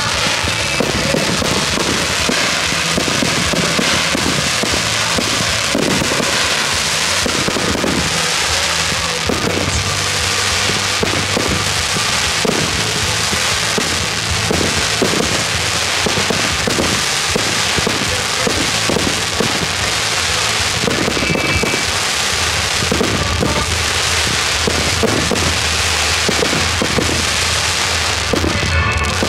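Fireworks display: a continuous barrage of shell bursts, bangs and crackling glitter effects going off in quick succession, with music playing underneath.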